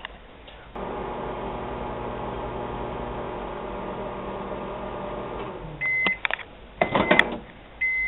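Microwave oven running with a steady hum, with a half-wave tin-foil antenna inside that fails to arc: no crackle is heard. The hum stops about five and a half seconds in, and the oven beeps. A few clicks follow as the door is opened, then another beep near the end.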